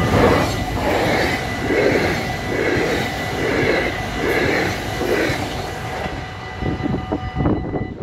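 An NS VIRM double-deck electric train passing close by at speed, its wheels and bogies giving a rhythmic rumble of a little more than one beat a second as the coaches go past, fading near the end. The level crossing's warning bell rings steadily underneath and stops shortly before the end.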